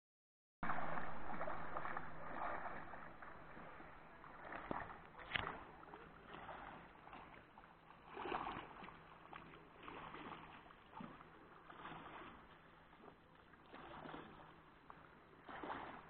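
Sea waves breaking and washing onto the shore, surging and fading every couple of seconds, with one sharp knock about five seconds in. The sound starts abruptly about half a second in.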